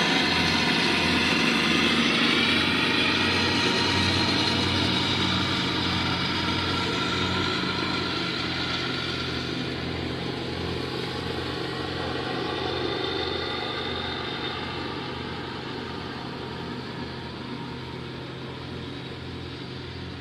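Lawn mower engine running steadily, growing gradually fainter as the mower moves away.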